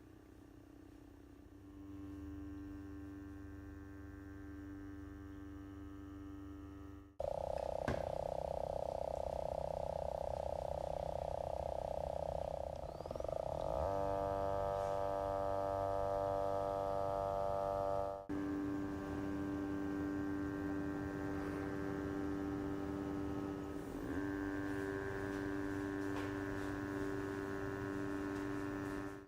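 Motor of a GVM GT-J80D motorized camera slider running at about 25% speed: a steady buzzing whine made of several even pitches, heard through a compact camera's built-in microphone. It starts about a second and a half in, and it gets suddenly louder and shifts in pitch about seven seconds in and again near eighteen seconds.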